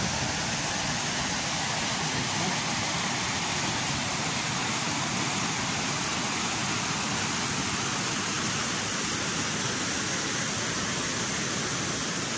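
Fast mountain river rushing over rapids and cascades: a steady, even rush of water with no break.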